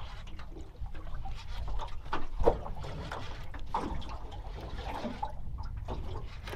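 Water lapping and slapping irregularly against the hull of a small aluminium boat, over a steady low rumble, with one sharper knock about two and a half seconds in.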